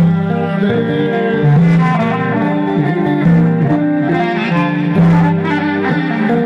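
Instrumental Greek folk dance music playing loudly, a melody over a steady rhythm, between sung verses.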